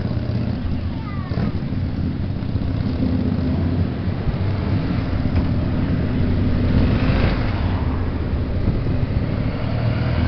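Motorcycle engines running as several bikes ride past one after another at low speed, giving a steady low engine note that swells a little past the middle.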